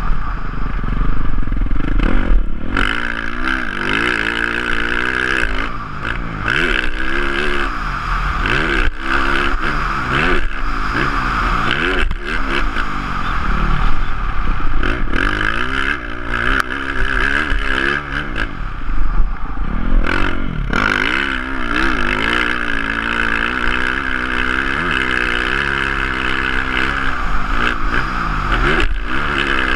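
Motocross dirt bike engine heard onboard, revving up and dropping back again and again as the rider accelerates and backs off, with wind rush and scattered knocks and clatter from the bike over rough ground.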